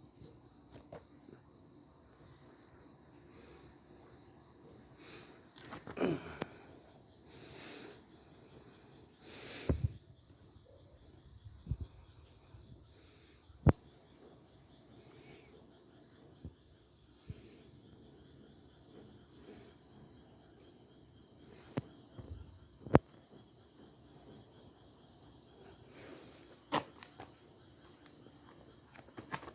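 Insects trilling steadily in a high, rapid pulse, with a few sharp knocks or taps scattered through.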